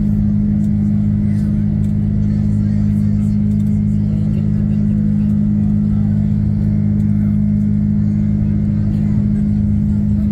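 Steady drone of a jet airliner's engines heard from inside the passenger cabin, with a strong low hum that holds even throughout.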